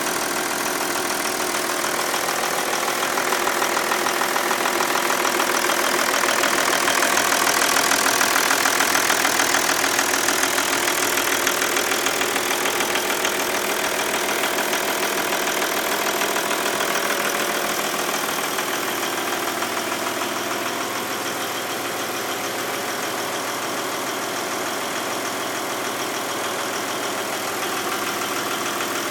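Audi A6 2.5 TDI diesel engine idling with a rapid, even clatter from the valve train area. The clatter persists despite a newly replaced camshaft, hydraulic lifters, rocker arms and pressure pieces, so its cause is still unknown. It grows louder for several seconds, then eases off somewhat.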